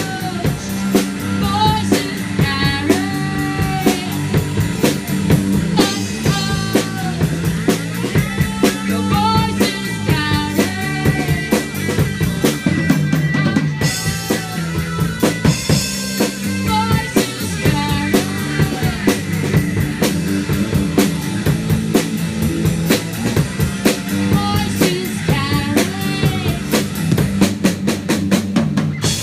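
Live rock band playing: a Tama drum kit keeping a steady beat with electric guitar, and a woman singing over it.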